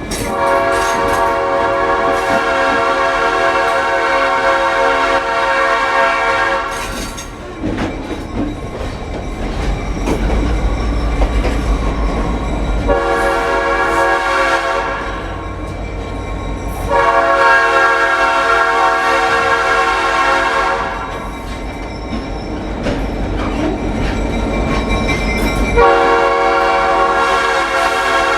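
Nathan AirChime P5A five-chime locomotive air horn blowing long blasts: one to about 7 s in, another from about 13 to 21 s that grows louder partway, and a third starting near the end. It sounds a chord of C#, F, G, A# and C#, an unintended chord from mixing second- and third-generation bell castings. Between the blasts the train rumbles along with rail noise.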